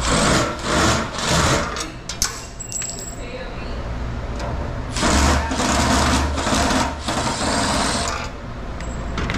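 Milwaukee Fuel cordless driver spinning the screws of a breaker panel's cover: three short runs in the first two seconds, then one longer run of about three seconds.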